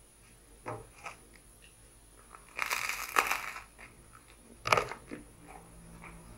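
Crusty homemade bread being bitten and chewed, the crust crunching: a couple of small crunches, then a long loud crunch about halfway through and another sharp crunch near the end.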